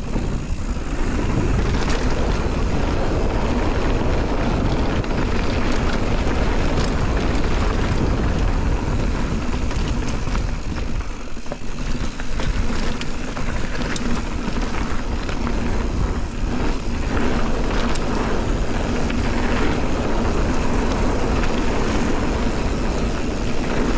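Mountain bike descending a dirt trail at speed: wind rushing over the camera microphone, with the tyres rolling over dirt and roots and the bike rattling over bumps. The noise eases briefly about halfway through.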